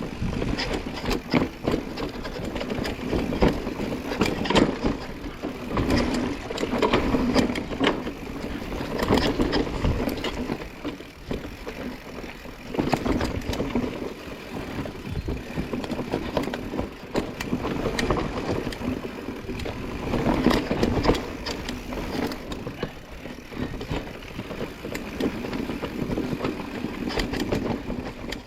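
Mountain bike riding a dirt trail: tyres rolling over rough ground, with frequent knocks and rattles from the bike over bumps.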